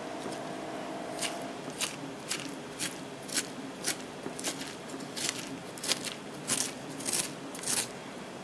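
Metal fork raking through cooked spaghetti squash, scraping the flesh loose into strands in short strokes. The strokes come about two a second, starting about a second in.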